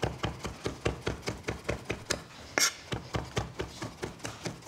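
Chef's knife rapidly chopping raw beef tenderloin on a wooden cutting board, the blade knocking the board about five times a second in an even rhythm, mincing the meat fine for steak tartare.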